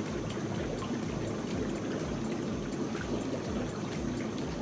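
Jacuzzi whirlpool jets running: water churning and bubbling steadily in the tub.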